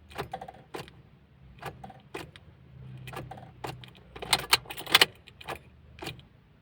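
Car keys jangling on their ring with a series of irregular clicks as the ignition key is turned to start a Toyota RAV4. No starter motor runs and the engine does not turn over: a no-crank, no-start.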